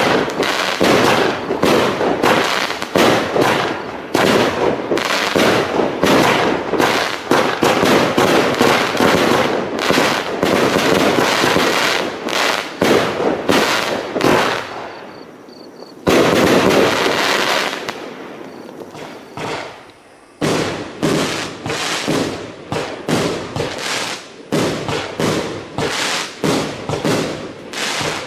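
A 30 mm firework cake firing shot after shot in quick succession, each shell launching and bursting. About halfway through the shots die down briefly, then start again loudly. In the later part they come as a steadier string of separate reports, about two a second.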